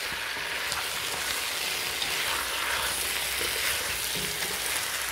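Sliced potatoes sizzling and frying in a pot with a steady hiss, while a silicone spatula turns them.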